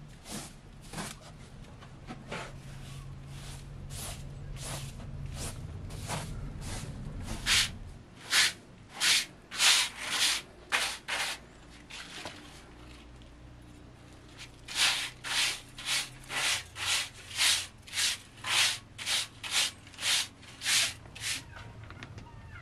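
A short straw hand broom sweeping a carpeted floor in brisk, scratchy strokes, about two a second. The strokes are faint at first, then come in two loud runs with a short pause between them.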